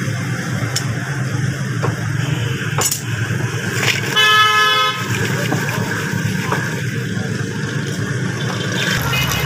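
A vehicle horn honks once, for about a second, about four seconds in, over a steady low background rumble.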